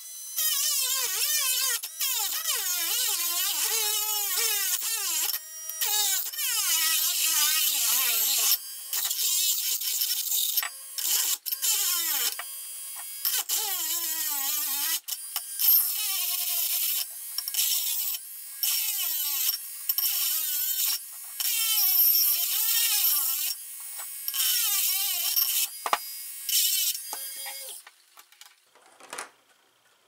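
Small cordless rotary tool grinding through a ceramic candlestick to widen a hole. Its whine rises and falls as the bit bites, with many short stops, and it stops a couple of seconds before the end. The tool is underpowered on a partly charged battery.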